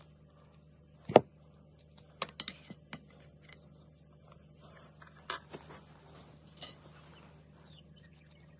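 Small metal clicks and clinks as field tips are unscrewed from carbon arrows and handled: one sharp click about a second in, a quick run of clinks a little later, and a few more near the end.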